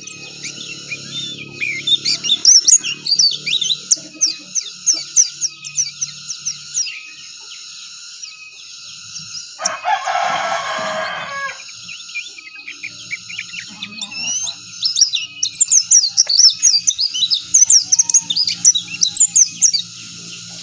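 Pleci dakun white-eye singing a fast twittering song of high chirps, in two long runs. A rooster crows once about halfway through.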